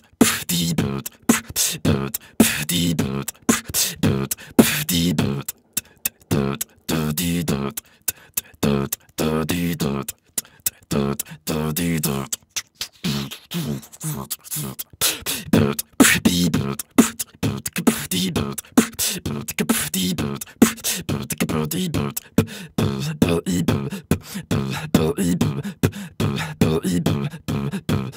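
Beatboxing: a fast, steady hip-hop beat of mouth-made drum sounds, sharp hits and clicks, with short pitched low notes between them.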